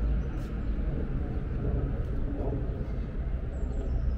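Outdoor city ambience: a steady low rumble of distant traffic with faint voices.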